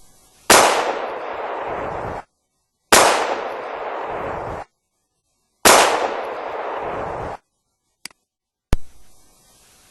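Three loud blasts, like gunshots or explosions, spaced about two and a half seconds apart. Each starts suddenly and fades in a noisy tail that cuts off abruptly, as in edited sound-effect clips. Two faint clicks follow near the end.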